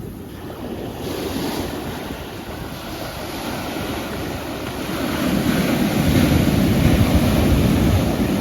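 Ocean waves washing onto the shore, a steady surf that swells louder about five seconds in as a bigger wave comes in and breaks.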